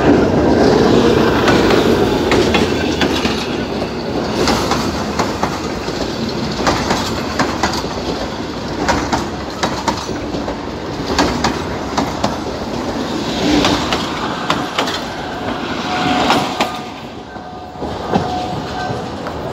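Abu Qir line passenger train rolling past close by, its wheels clacking over the rail joints in an uneven run of clicks, with a brief squeal from the wheels near the end.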